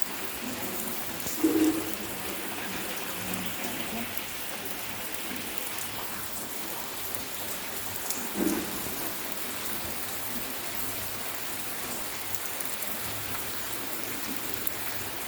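Steady rain falling and pattering on surfaces, with two short louder sounds, one about a second and a half in and one about eight seconds in.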